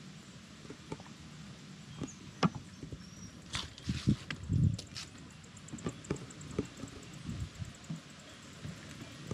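Footsteps on wooden deck boards: scattered light knocks and clicks, with a few soft heavier thumps about four to five seconds in.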